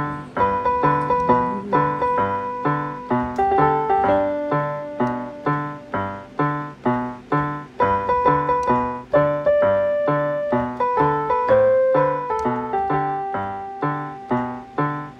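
Background music: a gentle tune of struck, fading notes, with a low note about twice a second under a higher melody.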